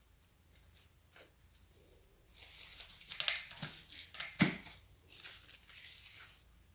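Rustling and crinkling as gloved hands handle lettuce seedlings and press them into potting soil, with two soft knocks in the middle, the second the loudest.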